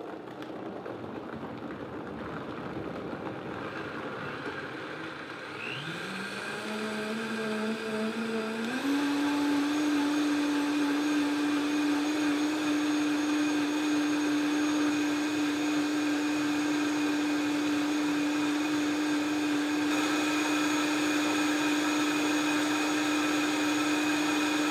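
Vitamix 5200 blender's motor starting at a low speed, its whine rising in steps as the variable speed dial is turned up, then running steadily at high from about nine seconds in while blending carrot soup.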